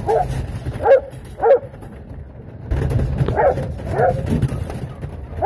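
A sheepdog barking in short repeated barks, in two runs with a lull around the middle, over a low rumble.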